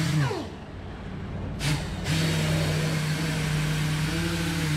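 Small handheld buffer with a foam pad, polishing compound into an oxidized plastic headlight lens. Its motor winds down with a falling pitch at the very start and gives a brief burst about a second and a half in. It starts up again about two seconds in and runs at a steady pitch.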